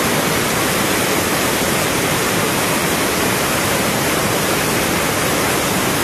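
River rapids rushing steadily around a rock, a loud, even roar of white water.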